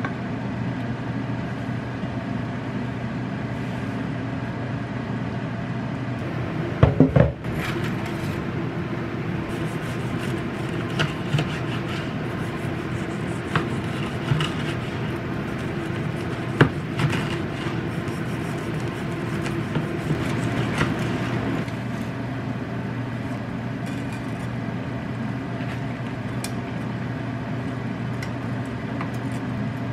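Steady low machine hum from a kitchen appliance, with a loud clatter of cooking utensils about seven seconds in and a few lighter clicks and taps of utensils later on.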